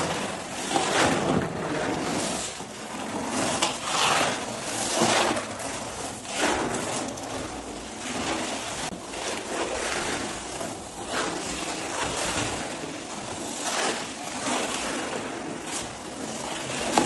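Rough rubbing strokes, like sanding by hand, swelling and fading irregularly about once a second.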